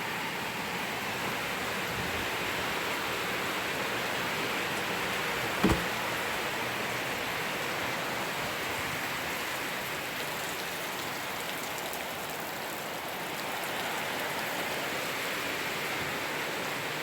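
Heavy rain falling steadily in an even hiss. About six seconds in there is a single short knock.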